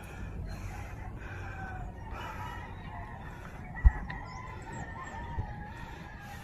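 A rooster crowing, with a sharp thump about four seconds in.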